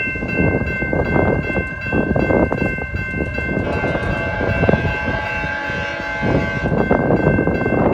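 Railway level-crossing warning bells ringing steadily, over a heavy low rumble from the approaching commuter train.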